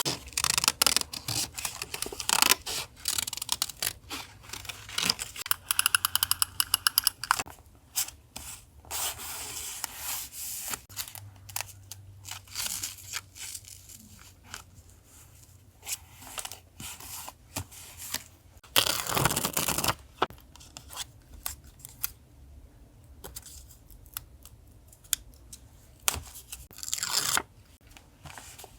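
Paper being handled for a journal collage: tearing, rustling and scraping, with many small taps and clicks. A longer, louder rustle or tear comes about two-thirds of the way through.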